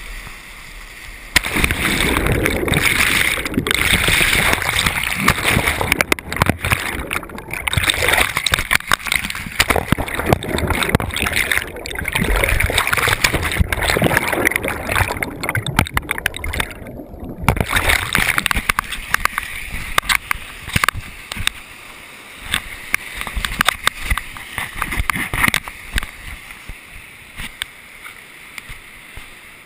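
Whitewater rapids rushing and splashing over a kayak-mounted camera, with water slapping and crackling on the microphone. It jumps suddenly louder about a second and a half in, cuts out briefly near the middle, and eases off near the end.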